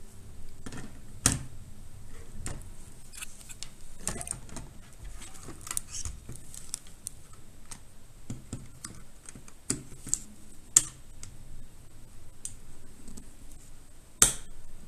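Irregular small plastic clicks and taps of an action camera being handled and fitted into its clear plastic waterproof housing, with sharper snaps about a second in, near eleven seconds and near the end.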